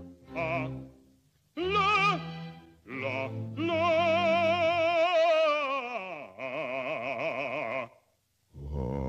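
Operatic singing with heavy vibrato from a cartoon soundtrack. A few short sung notes lead into a long held high note, which slides down about six seconds in and goes straight into a second held note.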